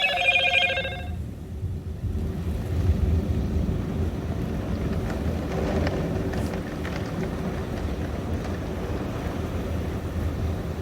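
Heavy rainstorm: a steady low rumble with a hiss of rain and wind, as heard from a vehicle. A short pulsing, ringing chime sounds in the first second.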